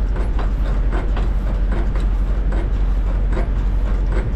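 Diesel engine idling with a steady low rumble, with a run of short, irregular ticks and clacks over it.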